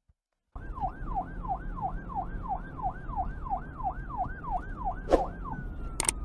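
Siren sound effect in a fast yelp: a falling wail repeated about three times a second over a low rumble, starting about half a second in. Near the end, two sharp mouse-click sound effects.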